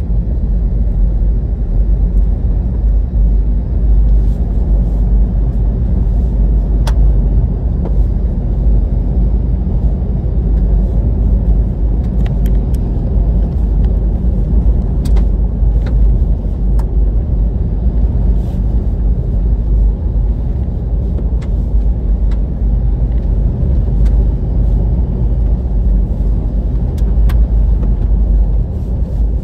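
Inside the cab of a 2018 Toyota 4Runner driving fast on a dirt road: a steady low rumble of tyres and drivetrain, with scattered sharp ticks.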